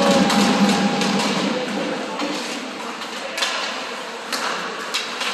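Music in a hockey arena fades out over the first two seconds. It leaves the rink's background hum and three sharp knocks of pucks and sticks.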